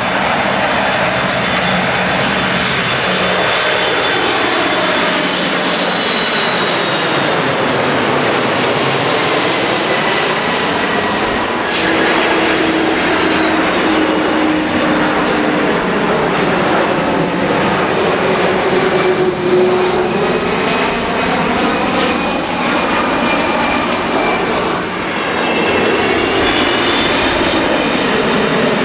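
Jet airliners on landing approach passing low overhead, engines running at approach power with a high whine that slides down in pitch as each one goes by. About twelve seconds in, the sound cuts abruptly to another approaching jet.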